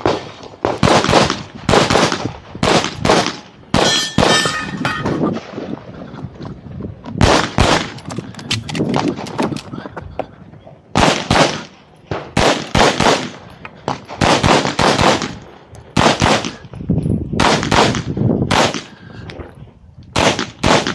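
CZ Shadow 2 9mm pistol fired in quick strings of shots, two or more close together, with gaps of a second or so between strings. About four seconds in, a short metallic ring follows the shots.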